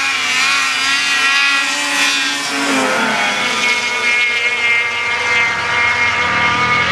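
Several racing snowmobiles at full throttle, launching and accelerating down a drag strip. Their engines make a loud, high whine of several layered pitches that holds nearly steady, dipping slightly about two and a half seconds in.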